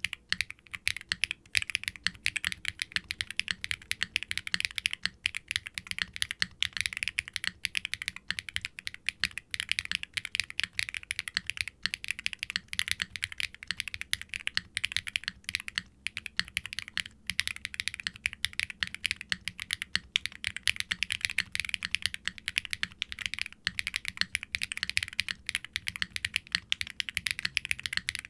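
Continuous fast typing on a mechanical keyboard with Keygeek B1 linear switches, glass-fibre-filled bottom housings built for a sharp clack, under GMK doubleshot ABS keycaps in an aluminium Wilba.tech Salvation case with an FR4 plate and no dampening foam. The keystrokes are a bright, rapid clacking with no pauses.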